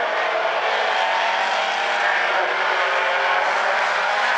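Several Outlaw Compact race car engines running hard at high revs together, a steady drone of overlapping engine notes as the pack circulates.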